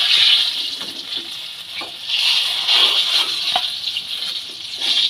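Brinjal halves sizzling in hot mustard oil in a wok, with a few light knocks of a spatula against the pan as they are turned and lifted out.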